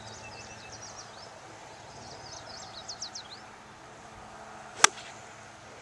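Birds chirping over steady outdoor noise, then, near the end, a single sharp crack of a golf club striking the ball on a 125-yard approach shot.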